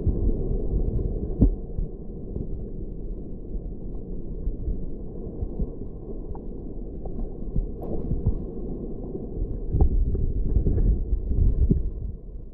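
Muffled underwater sound of shallow sea water surging over rocks and weed, heard through a camera's waterproof housing: a low, steady churning rumble with scattered clicks and knocks. It fades out near the end.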